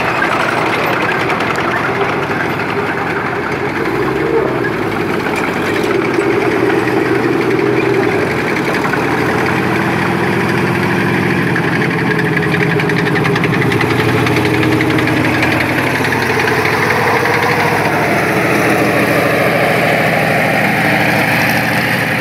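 Engines of a column of World War II armoured vehicles, among them a Sherman tank, running as they pass close by. The engine note shifts in pitch over the last several seconds.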